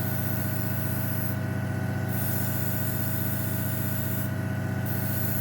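Airbrush spraying paint in passes, its air hiss cutting off briefly twice and starting again, over the steady hum of the airbrush compressor.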